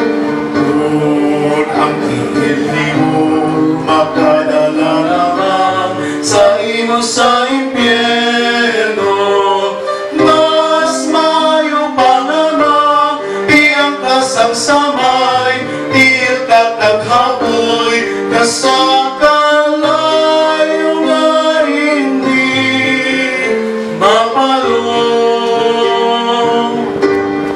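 Two men singing a Hiligaynon song as a duet into microphones, over a plucked-string accompaniment.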